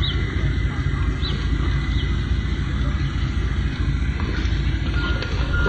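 Steady low rumble with a vehicle's reversing alarm starting to beep about five seconds in, repeating at a steady pace.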